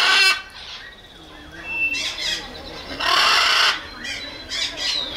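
Macaw giving loud, harsh squawks: a short one at the start and a longer one about three seconds in, with smaller raspy calls between them.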